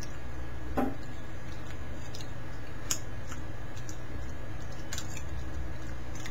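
A metal spoon makes a few faint clicks and taps while sauce is tasted from it, with a short murmur from the taster about a second in, over a steady low hum.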